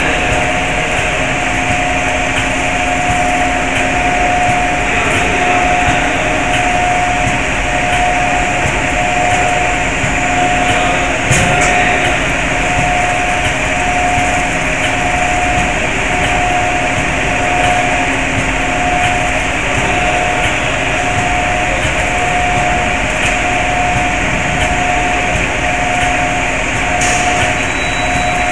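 PCB assembly machinery running: a steady mechanical whir with a constant low hum and a higher tone that pulses evenly, a little faster than once a second.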